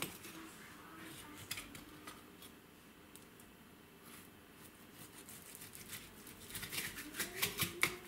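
Chef's knife cutting raw venison saddle away from the backbone: soft slicing and scraping of the blade along meat and bone, with faint clicks against the wooden cutting board that come thicker near the end.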